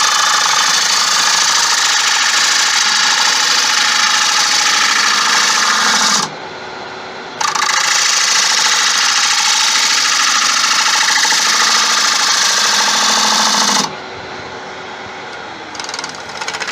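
Bowl gouge cutting the inside of a spinning wooden bowl on a lathe, a loud steady hissing shear of the cut, using the gouge's inside wing. Two cuts of about six seconds each with a short break between them. Near the end the cutting stops and only the quieter running of the lathe remains.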